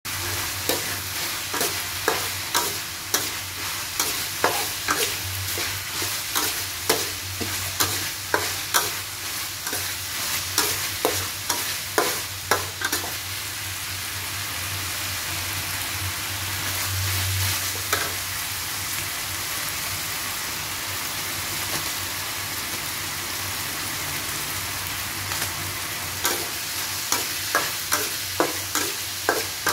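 Chopped meat frying in a steel wok with a steady sizzle, while a metal spatula scrapes and clinks against the pan in quick strokes. The clinking runs for roughly the first dozen seconds, stops so that only the sizzle is left, and starts again near the end.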